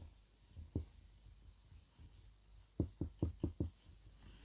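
Marker pen writing on a whiteboard: faint short strokes, with a quick run of about six strokes a little past halfway.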